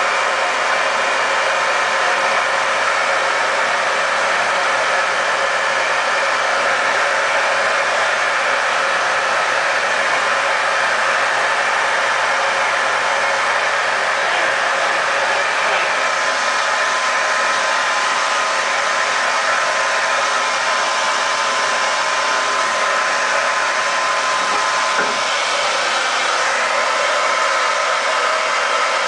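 Handheld blow dryer running steadily, a continuous rush of air, with a faint whine joining about halfway through.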